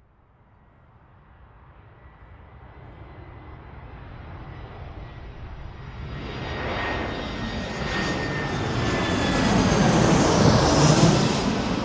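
Jet aircraft coming in to land, its engine noise growing steadily louder from almost nothing as it approaches, with a thin high whine over the rush. The sound peaks shortly before the end and then starts to fade.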